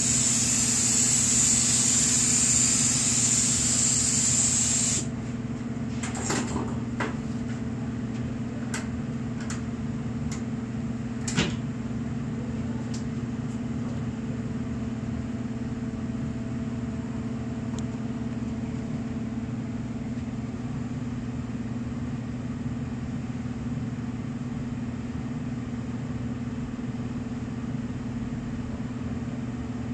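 Compressed-air spray gun hissing steadily as it sprays activator over the film on a hydrographic dip tank, then cutting off about five seconds in. A steady low hum runs underneath, with a few light clicks and one sharper knock about eleven seconds in.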